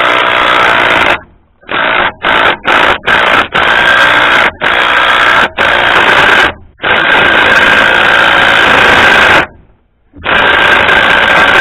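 Power tool running manifold studs into the engine in trigger pulls. It runs steadily with a whine, then in several short bursts, then in longer runs of one to three seconds with brief stops.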